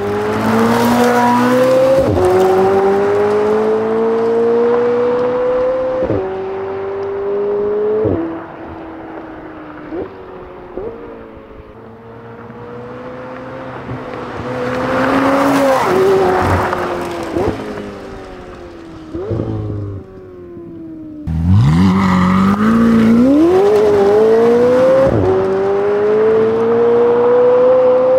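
McLaren 720S twin-turbo V8 through a valved titanium aftermarket exhaust with stock downpipes, accelerating hard through the gears. Its note climbs steadily in each gear and drops sharply at each quick upshift, many times over. After a short lull about three-quarters of the way through, it pulls hard again from low revs.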